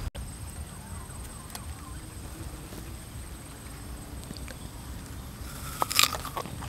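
Low background noise, then about six seconds in a crisp bite into a firm green mango slice, a few short sharp crunches.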